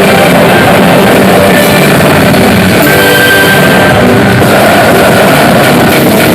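Loud, steady rock-style music with electric guitar and drums, the kind of backing music a Million God Gaisen pachislot machine plays through its speakers.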